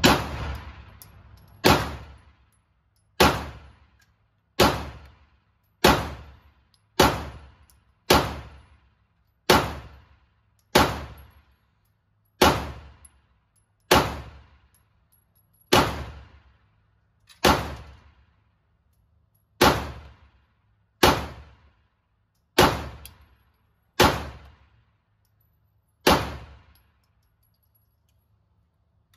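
A Canik TTI Combat 9mm pistol firing about eighteen single shots of 115-grain brass-cased ammunition, slow and evenly paced about one and a half seconds apart. Each shot echoes briefly off the walls of an indoor range, and the firing stops a few seconds before the end.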